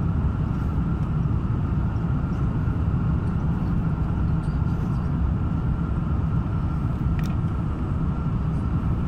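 Steady low vehicle rumble with a faint steady whine above it, and a single sharp click about seven seconds in.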